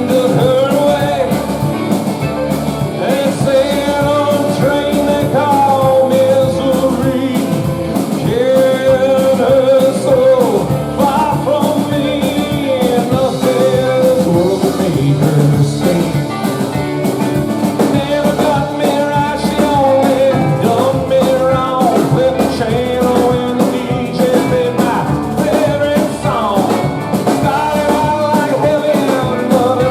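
Rock band playing a song, with a singer over a steady drum beat.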